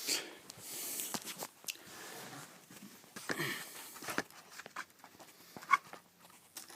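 Plastering blade scraping back and floating over a setting plaster patch: scratchy strokes of scraping, with small clicks and taps of the tool against the wall.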